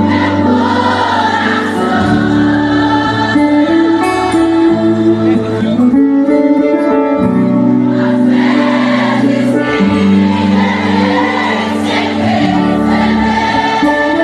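Live gospel worship music: a band holds slow, sustained chords with deep bass notes that change about every two seconds, while voices sing along.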